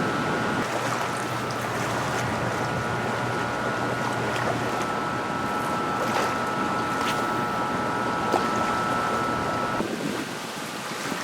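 Fast-flowing river water rushing steadily below a dam, with a faint thin high hum that stops near the end and a few light ticks.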